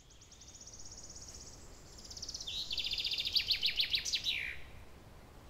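A songbird singing one song: a fast high trill, then a louder run of rapid notes that ends in a quick downward flourish about four and a half seconds in, over faint outdoor background noise.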